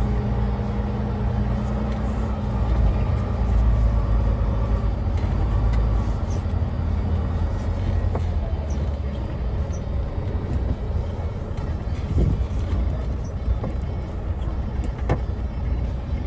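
Semi truck's diesel engine running, heard from inside the cab as the truck drives across the yard: a steady low rumble.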